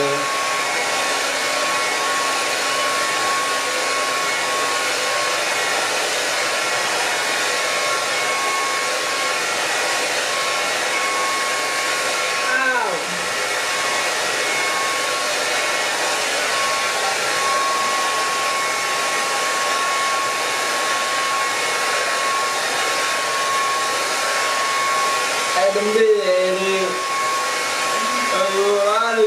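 Handheld hair dryer running steadily, a rush of air with a steady whine, drying hair; its sound dips briefly about halfway through.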